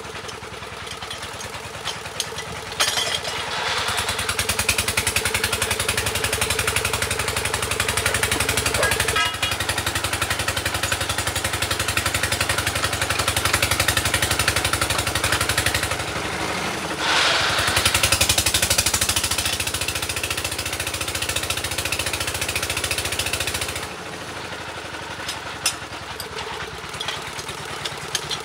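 Engine of a water-well drilling rig running steadily. It gets louder about three seconds in, dips briefly partway through, and drops back near the end.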